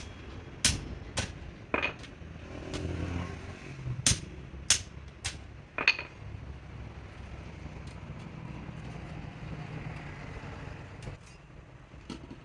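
Sharp metallic clinks of tools and parts being handled, about seven in the first six seconds and two more near the end, some with a short ring. Under them runs a low rumble of passing vehicles, which swells briefly about three seconds in.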